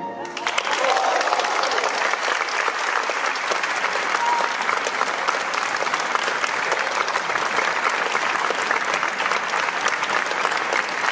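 Audience applause breaking out just as the ensemble's last note stops, then steady clapping.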